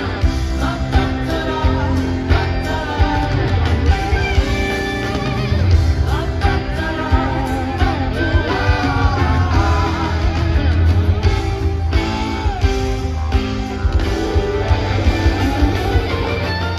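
A live rock band playing: electric guitars, bass, keyboards and drums, with a wavering lead line over a steady, heavy bass.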